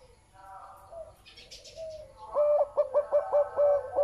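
Zebra dove, a big-voiced song dove, cooing. Soft coos come first; about two seconds in it breaks into a louder run of quick staccato notes, about four a second, that runs into a long held coo at the end.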